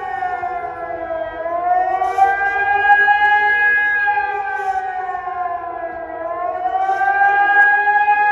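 Civil-defence siren sounding the German 'Warnung der Bevölkerung' public warning signal. It is a loud howl whose pitch sinks and climbs back up, dipping twice: about a second in and about six seconds in.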